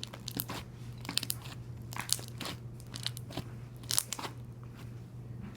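Slime being squeezed and worked by hand, giving irregular crackles and pops.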